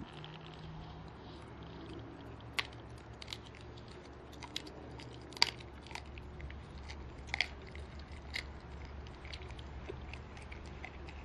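A corgi chewing a raw lamb tail, his teeth cracking through its bone and gristle in a series of sharp crunches, the loudest about halfway through.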